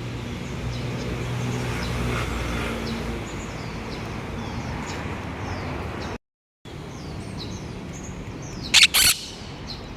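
Many faint short bird chirps over a low steady rumble, then two loud, harsh squawks in quick succession near the end from a frightened monk parakeet calling in alarm.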